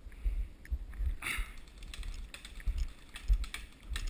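Footsteps crunching through snow at a walking pace, a couple of steps a second, each footfall with a low thump.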